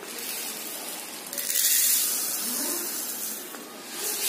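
Dry split yellow dal pouring from a plastic spice dispenser into a plastic bowl: a rushing rattle of grains that swells about a second in and tapers off near the end.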